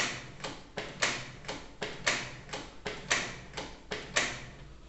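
Canon inkjet printer's mechanism clicking and ticking as it gets ready for its first print, with a stronger click about once a second and lighter ticks between. The clicking dies away near the end.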